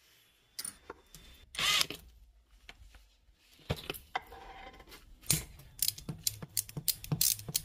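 Hand tools and metal engine parts clinking and clicking during an engine teardown: a ringing metallic clank about two seconds in, then a quick run of sharp clicks and knocks.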